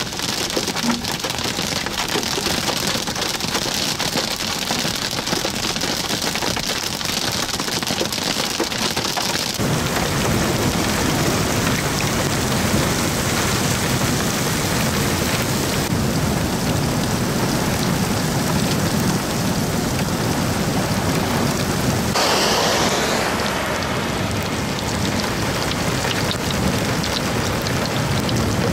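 Hail and rain pelting down hard in a supercell storm, a dense, continuous clatter of countless stones striking a surface. About ten seconds in, the pelting turns lower and heavier.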